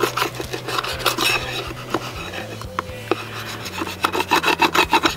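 A metal putty knife scrapes in quick repeated strokes over a plastic car bumper, shaving down hardened filler of crushed ramen noodles and adhesive to level it with the surface. The strokes thin out in the middle.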